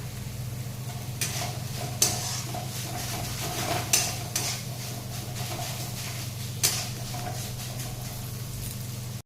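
Spatula stirring crumbled paneer in a kadai, scraping and knocking against the pan several times, with the loudest knocks about two, four and nearly seven seconds in, over a faint sizzle of frying. A steady low hum runs underneath.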